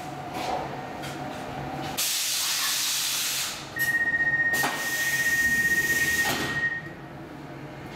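Pneumatic door gear of a Stockholm C14 metro car at a platform: a loud hiss of air starts about two seconds in, then a steady high warning tone sounds for about three seconds over more hissing, with a couple of knocks, before it goes quieter. This is the door-closing sequence before departure.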